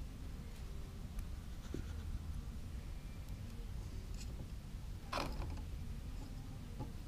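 Small metal clicks and scrapes as a dial indicator and its magnetic-base arm are adjusted and clamped by hand, with one louder scrape about five seconds in, over a low steady hum.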